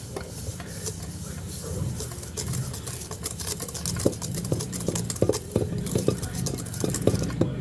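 Dry pizza-dough ingredients being stirred in a mixing bowl with a utensil, giving irregular clicks and taps against the bowl, over a steady low hum.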